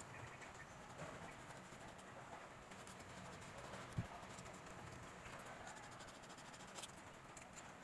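Faint rubbing of sandpaper over a fan motor's armature as it is cleaned by hand, with a soft thump about four seconds in.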